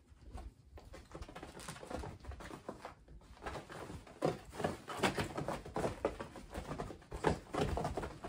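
Kittens' paws pattering and thumping on the fabric floor of a pop-up playpen as they run, pounce and wrestle: an irregular scatter of soft thuds and scuffs, busier and louder in the second half.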